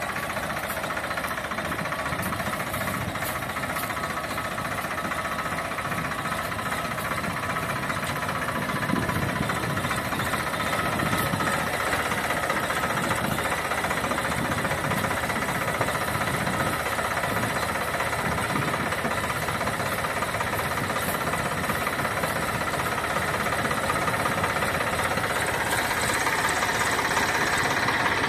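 Farmtrac 60 EPI tractor's three-cylinder diesel engine running steadily as the tractor works, a little louder near the end.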